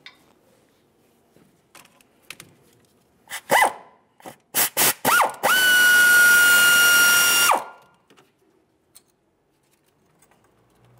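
Cordless power tool driving a 10 mm socket on an extension, backing out a brake-hose bracket bolt. A few short bursts come about a third of the way in, then a steady high motor whine for about two seconds that stops abruptly. A few light knocks come before it.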